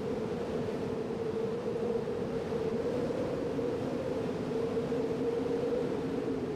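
A boat's engine running steadily at constant speed, a steady low drone over the hiss of wind and water.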